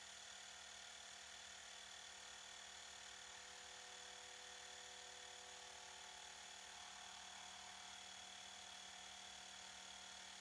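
Xiaomi Mi portable electric air compressor running steadily, pumping air into a football. It makes a faint, even motor hum and buzz.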